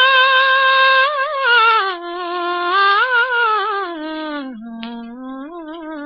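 A woman's voice singing a wordless melody in an early-1960s Telugu film song. She holds a long high note, then winds down in pitch with small ornamented turns, and settles on a lower held note near the end.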